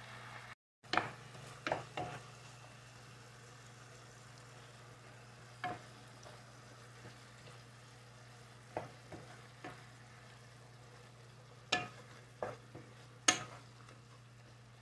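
Minced pork frying at a faint sizzle in a nonstick pan, with a steady low hum underneath. A wooden spatula stirs the meat, knocking and scraping against the pan every second or two; the loudest knock comes near the end.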